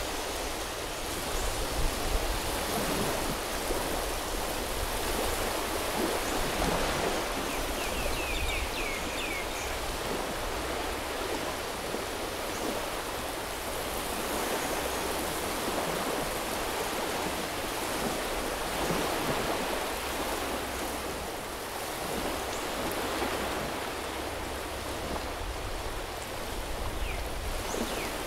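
Sea waves washing onto a tropical beach: a steady rushing wash that rises and falls gently every few seconds, with a low rumble underneath. A few short high chirps sound about eight seconds in and again near the end.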